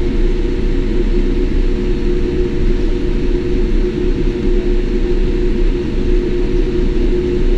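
Steady cabin noise inside a Boeing 787 taxiing slowly after landing: a constant low rumble from the engines at idle and the airframe rolling, with a steady hum tone over it.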